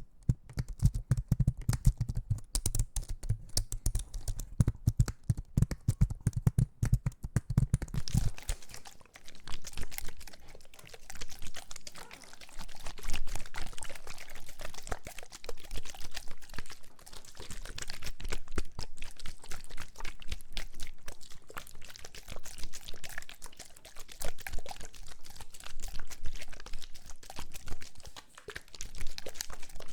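ASMR trigger sounds: rapid close-miked tapping and clicking, like fingers on a keyboard, for the first eight seconds or so, then a dense fine crackling fizz for the rest.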